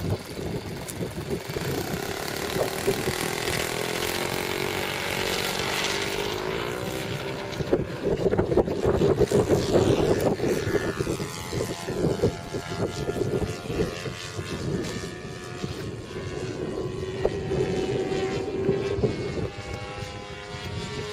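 Radio-controlled model Pilatus PC-9 flying, its engine and propeller droning and sliding up and down in pitch as it passes back and forth, with wind noise on the microphone.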